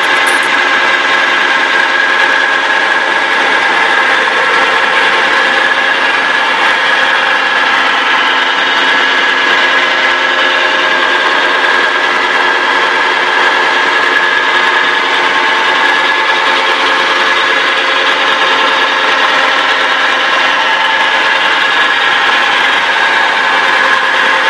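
Fritz Werner tool-room milling machine running under power: a steady, unchanging mechanical hum with a constant high whine.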